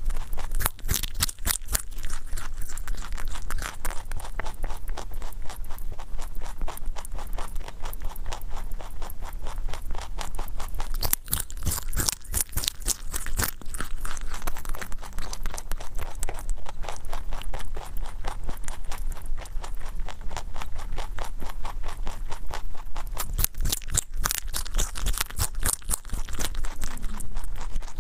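A rabbit chewing raw baby carrots close to the microphone: rapid, steady crisp crunching that keeps going, a little louder twice.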